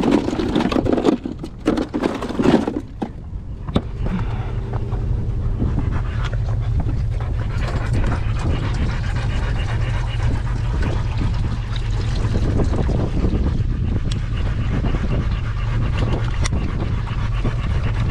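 Hunting hounds panting in a truck-bed dog box, winded after running and fighting a coyote, over a steady low hum. A few knocks and rattles in the first three seconds as a cooler is opened for water.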